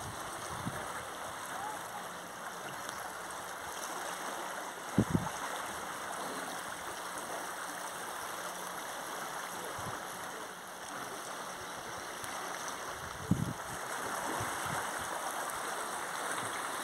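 Steady rushing of a flood-swollen river's fast, muddy water, with two brief low thumps, one about five seconds in and one later on.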